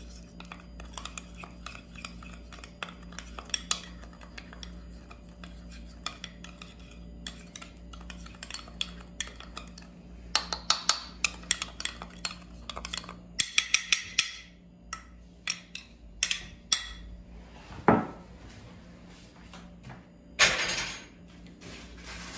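Metal spoon stirring a spice-and-olive-oil marinade in a small glass bowl, with many small clinks and taps against the glass, quickest in the middle. Near the end there is one louder knock, then a short noisy burst.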